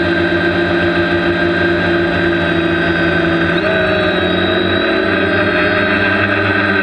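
Multirotor drone's electric motors and propellers whirring steadily, heard close up from the camera mounted on the drone. About halfway through, the pitch shifts as the motors change speed when the drone banks into a turn.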